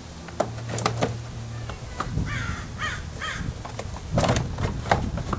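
Plastic door trim panel of a Ford Explorer knocking, scraping and creaking against the metal door as it is hung on its tabs and worked into place. There are a few sharp clicks at first and heavier knocks near the end.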